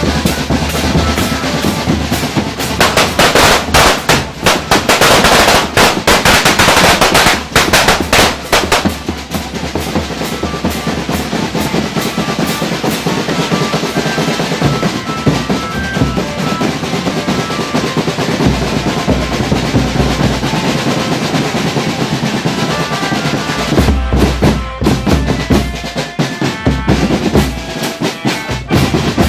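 Marching drumband percussion: bass drums, snare drums and hand cymbals playing a fast, dense rhythm with snare rolls. There is a run of loud cymbal crashes a few seconds in.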